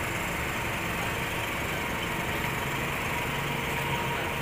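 A heavy diesel engine running steadily at idle, with an even, unchanging drone.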